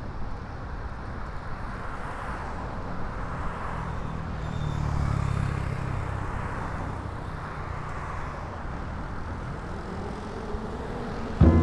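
City traffic noise heard from a moving bicycle: a steady road and wind rumble, with a vehicle engine swelling louder for a couple of seconds midway. Music cuts in at the very end.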